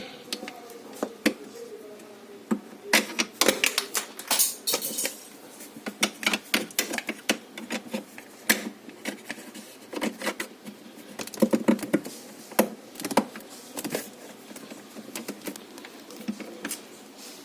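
Irregular sharp clicks and knocks of hard parts being handled, some coming in quick clusters.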